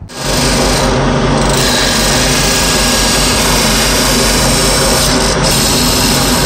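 Wood lathe running with a hand-held turning tool cutting a spinning wooden horn: a steady scraping hiss over the low hum of the lathe motor, starting abruptly.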